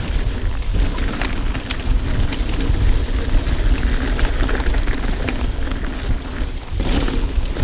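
Mountain bike riding down a rocky dirt trail: wind buffeting the microphone with a steady low rumble, and the tyres and bike rattling and crunching over dirt and rocks.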